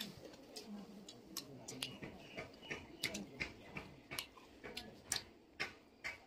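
Close-miked eating sounds: irregular wet clicks and smacks of chewing mouths, two or three a second.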